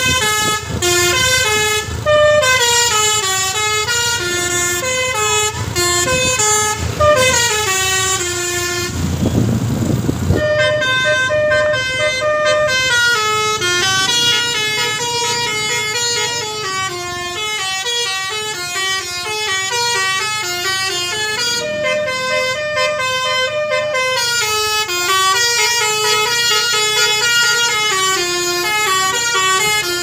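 Telolet Basuri musical air horn on a Tunggal Jaya bus playing a fast, continuous melody of stepping notes. The tune breaks off briefly about nine seconds in, where a rush of noise takes over, then carries on.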